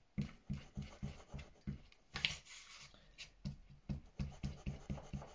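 Glue stick rubbed back and forth across a sheet of paper on a tabletop, in quick even strokes about three times a second, spreading a fresh layer of glue.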